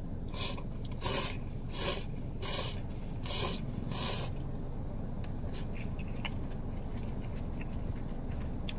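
Buckwheat soba noodles slurped from a cup: about six quick, loud slurps over the first four seconds, then a few faint clicks, over a steady low hum.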